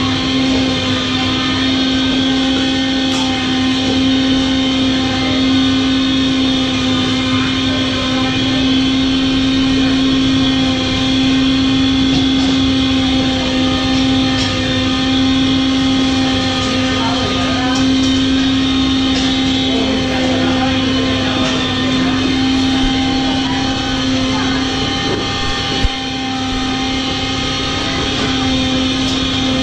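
A machine running steadily: a loud, even drone with a strong low hum and fainter steady tones above it. A few light clicks sound over it, one sharper near the end.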